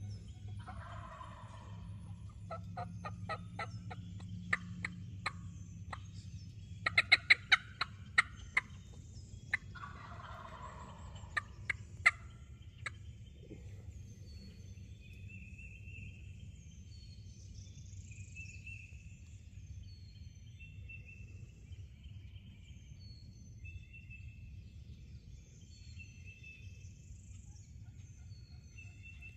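A wild turkey gobbler gobbles twice, once just after the start and again about ten seconds in, fainter than the rest. Between the gobbles come fast runs of hen yelps and cutting from a turkey call, the loudest and sharpest sounds, peaking about seven to eight seconds in. Songbirds chirp faintly through the second half.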